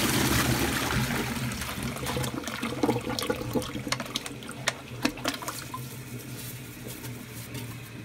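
Toilet flush: water rushing into the bowl, loudest at first and steadily fading, with a few sharp clicks and knocks about halfway through.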